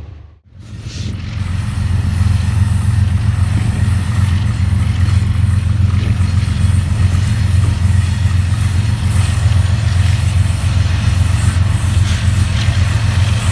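Diesel locomotive engine running, a steady low drone over a broad even hiss. It cuts in after a moment of silence just under half a second in.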